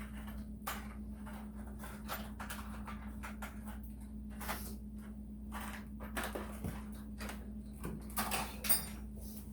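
Scattered light clicks and rustles of wire and small electrical parts being handled, over a steady low hum. A few louder clicks come near the end.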